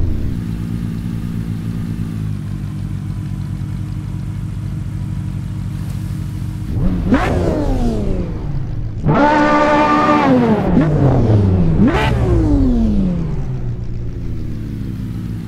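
Sports car engine idling with a low rumble, then revved: a quick blip about seven seconds in, a louder, longer rev held high for over a second, and another quick blip about twelve seconds in, each falling back to idle.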